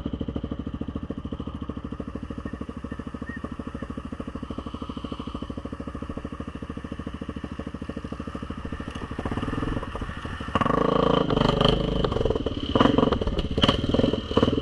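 ATV engine idling with a steady, even beat. About ten seconds in it revs up and runs louder under throttle, with knocks and clatter over the engine.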